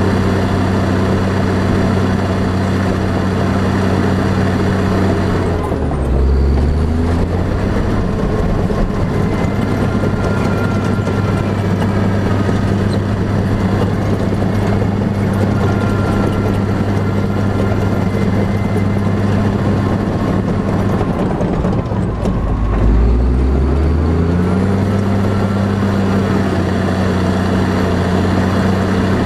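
A heavy engine running steadily with a low hum; about a quarter of the way in its pitch drops as it changes speed, and it climbs back up to the first steady pitch near the end.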